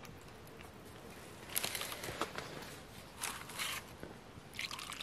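A hand mixing and squeezing shredded dried vegetables in a steel bowl, heard as three short bouts of rustling starting about one and a half seconds in.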